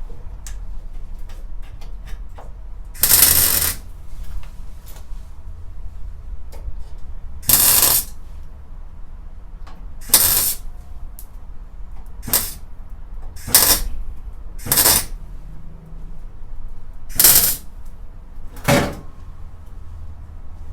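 Welder laying tack welds on thin sheet-steel patch panel: eight short crackling bursts, each under a second, a second or more apart.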